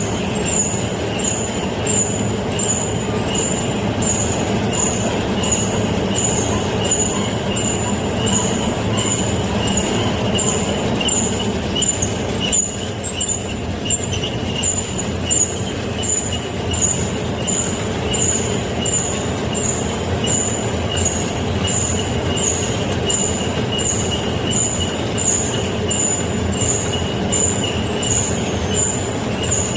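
Rice-cake forming machine (kkultteok and songpyeon former) running steadily, with a high repeating squeak or tick from its mechanism about three times every two seconds.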